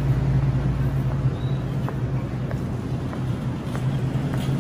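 Steady low machine hum under a hiss of room noise, with a few faint clicks.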